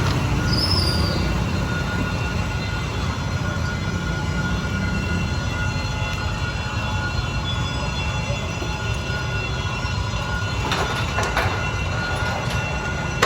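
D19E diesel-electric locomotive hauling a passenger train slowly into a station: a heavy low rumble with a steady high squeal over it, and a few sharp clanks about eleven seconds in.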